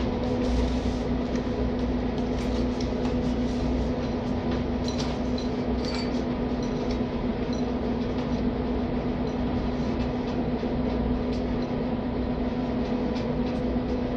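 Steady machine hum with a fixed low tone, like a fan or blower running, under scattered light clicks and taps.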